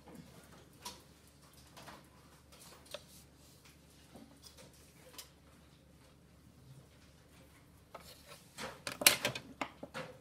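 Pencil drawn along a plastic set square on paper in short scratchy strokes, roughly one a second. Near the end comes a louder burst of clicks and rattles from drawing instruments being handled.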